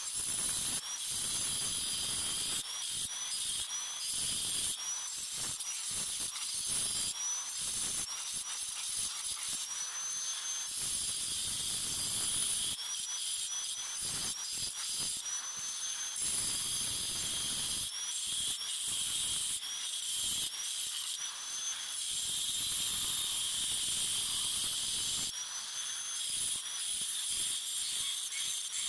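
Angle grinder with a cutting disc cutting into the rim of a glazed ceramic water-lily bowl: a steady high-pitched grinding hiss, with the motor's whine sliding up in pitch again and again as the cut goes on.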